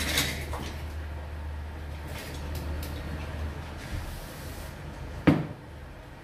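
Small objects and tools handled on a workbench: a few light clicks, then one sharp knock about five seconds in. A low hum runs underneath and stops about four and a half seconds in.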